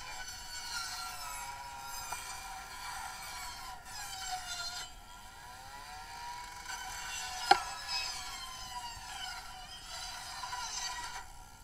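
Fire hose stream hitting a burning car, with many shifting, wavering whistling tones over a hiss, and one sharp pop about seven and a half seconds in.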